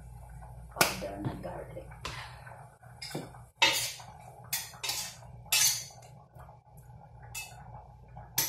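Cooking utensils, pots and containers clinking and knocking together as ingredients are added to a pan: a string of about nine sharp clinks, several close together in the middle.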